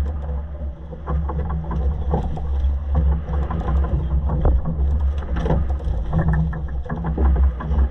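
Boat engine rumble with water splashing and sloshing against the hull, and scattered knocks and rattles on deck.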